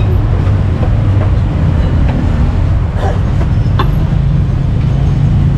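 Steady low engine rumble of street traffic, with a few faint knocks about three to four seconds in.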